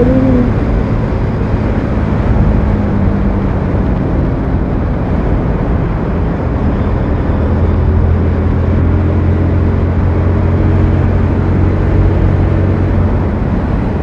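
Motorcycle engine running steadily at cruising speed, a little louder for a few seconds past the middle, with wind and road noise on the helmet-mounted camera mic.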